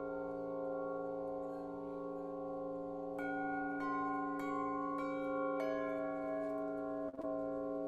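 Solfeggio chimes ringing, several tones sustaining and overlapping, with fresh strikes a little after three seconds, around four seconds and at about five and a half seconds. The sound briefly drops out near the end.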